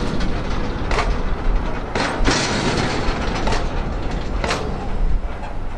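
Freight train passing, a steady rumble with sharp wheel clacks over the rail joints about once a second.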